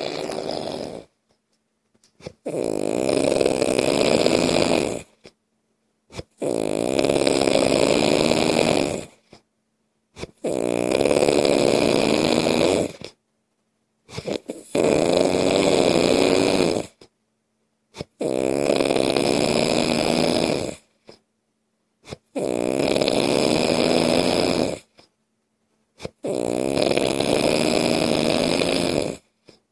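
Loud snoring: long snores about every four seconds, each lasting two to three seconds with a wavering pitch, separated by about a second of silence.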